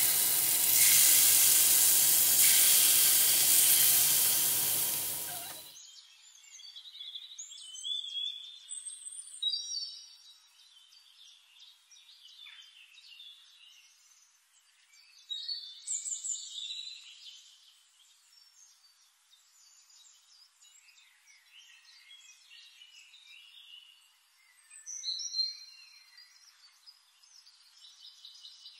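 A loud sizzling hiss that stops abruptly about six seconds in. After it, small birds chirp and sing in short, high phrases separated by pauses.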